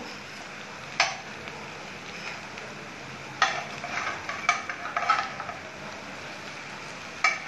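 Metal spatula knocking and scraping against a non-stick frying pan as fried rui fish pieces are set into the spice paste. There is a sharp knock about a second in, a cluster of clatters around the middle, and another knock near the end, over a faint steady sizzle of the paste in oil.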